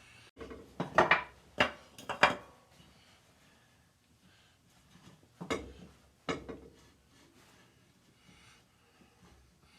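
Wooden 2x4 blocks being pulled out from under a piston, knocking and clattering against each other and the engine: a quick cluster of knocks in the first couple of seconds, then two more a few seconds later.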